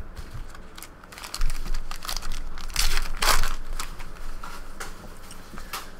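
Plastic trading-card pack wrapper crinkling and tearing as a pack is ripped open by hand, in irregular crackly bursts that are loudest near the middle.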